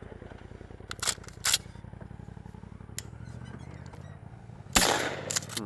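Dirt bike engine idling steadily, with a few sharp clicks and a louder rush of noise near the end.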